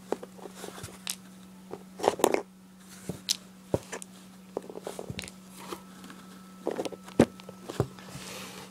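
Plastic paint markers clicking and knocking against one another and the cardboard box as they are handled and rummaged through, with cardboard rustling; a steady low hum underneath.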